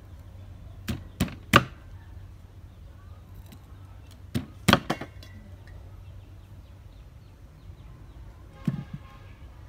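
Cleaver chopping through a corn cob onto a round wooden chopping board: three sharp chops about a second in and three more at around four and a half seconds, then a single lighter knock near the end.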